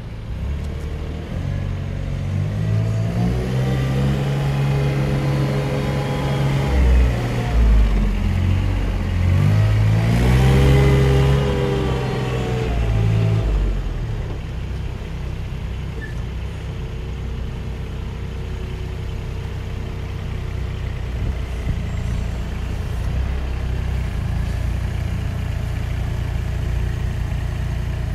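Thwaites Mach 201 one-tonne mini dumper's diesel engine running as the machine is driven: the revs rise and fall twice in the first half, then it runs steadier at lower revs, with a faint steady whine for a few seconds partway through.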